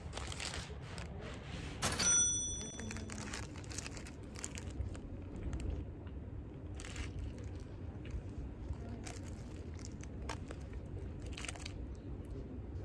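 Paper food wrapper crinkling in the hand, with scattered crackles and crunches, over a steady low rumble. A loud sharp click with a brief ringing about two seconds in.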